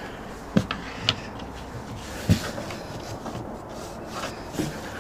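A few sharp wooden knocks as a softwood sawhorse, shimmed with coins under its legs, is rocked on a plywood sheet to check for wobble, its feet tapping down on the board.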